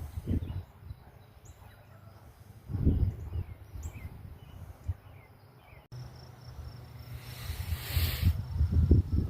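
Outdoor ambience: wind buffeting the microphone in gusts, growing stronger near the end. Faint short bird chirps come in the first half, and a thin, steady insect trill is heard after an edit cut.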